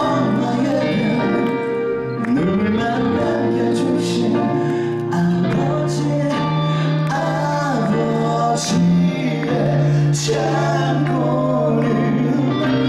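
Two male singers performing a duet into handheld microphones over instrumental accompaniment, with sustained low notes under the sung melody; near the end one voice carries the line alone.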